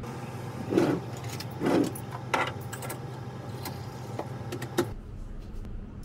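Metal spoon and fork clinking and knocking against each other and hard surfaces, over a steady low hum that stops about five seconds in. A few louder knocks come in the first two and a half seconds.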